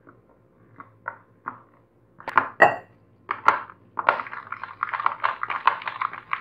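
A spoon and a steel tumbler clink against a glass bowl several times, one knock ringing briefly. Then, about four seconds in, a hand mixes jaggery syrup into thick rice batter in the bowl with fast, continuous strokes.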